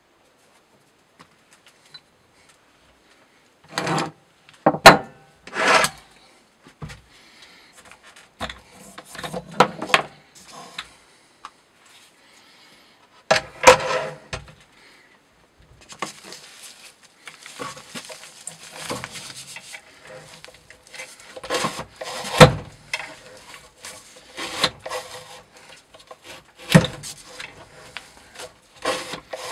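Knocks and clatter as a knife edge-testing rig is handled: weight plates lifted and set down on a wooden blade holder, with several sharp knocks and rubbing and scraping of wood.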